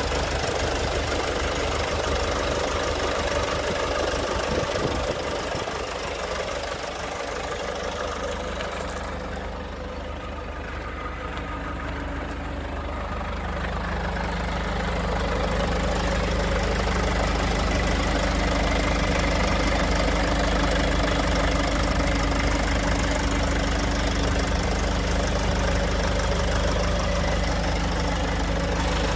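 Nissan Cabstar truck's diesel engine idling steadily. It dips a little quieter for a few seconds partway through, then runs louder and even for the rest.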